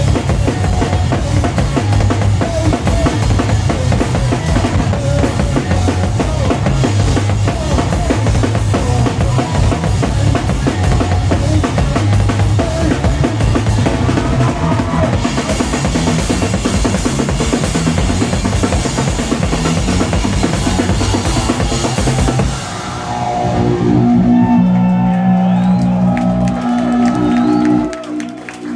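Live noise-rock drum kit and distorted bass guitar playing fast and loud, the drums hammering dense rapid beats. About three-quarters of the way through, the drums stop and a few held bass notes ring on as the song winds down.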